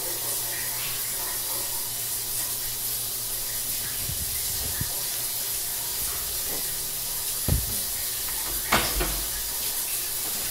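Shower spray hissing steadily onto a tiled stall, with a couple of brief knocks in the second half.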